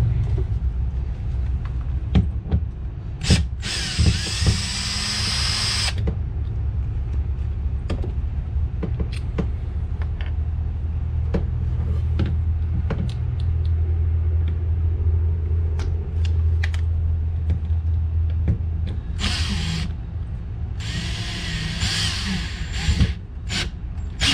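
Cordless power drill running in short bursts, one about four seconds in and two more near the end, with small handling clicks over a steady low hum.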